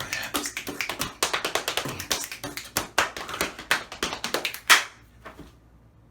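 A rapid, uneven run of sharp taps, several a second, with the loudest hit about three-quarters of the way through, stopping shortly before the end.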